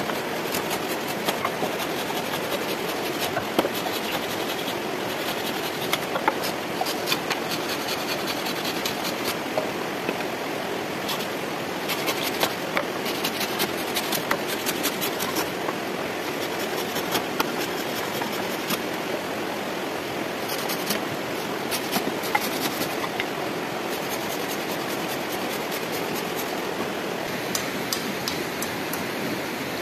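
A folding hand saw rasping through a thin wooden pole, with scrapes, clicks and knocks of poles being handled, over the steady rush of a stream.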